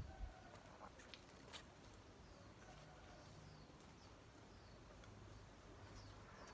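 Near silence outdoors, with faint short bird chirps now and then and a couple of soft clicks near the start.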